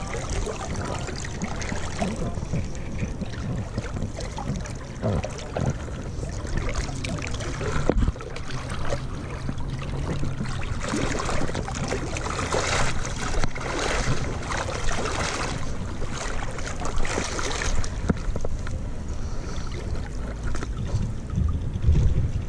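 River water splashing and lapping right at the microphone, a continuous rushing sound that grows busier and louder about halfway through, over a steady low rumble.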